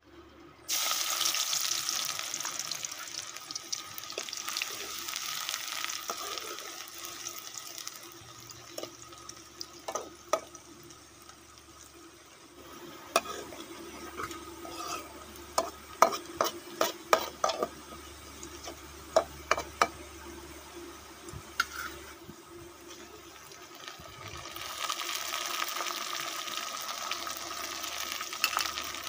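Chopped onions hitting hot oil in an aluminium kadai and sizzling, the hiss starting suddenly and slowly settling as they fry toward light golden brown. A metal ladle clicks and scrapes against the pan as they are stirred, and near the end the sizzle swells again as chopped tomato and green chilli go in.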